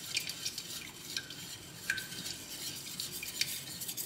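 Wire whisk whisking a thin oat-milk sauce in a stainless steel saucepan: quick, continuous scraping and clinking of the wires against the pan, with a few sharper clinks that ring briefly.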